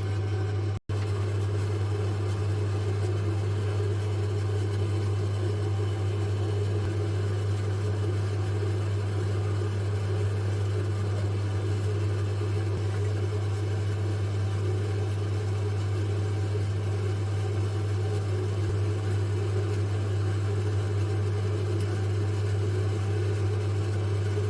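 Steady low hum of a small motor or fan running without change, cut off for an instant about a second in.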